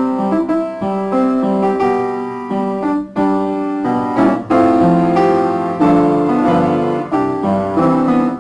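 Closing music on piano, a run of quick notes over changing chords.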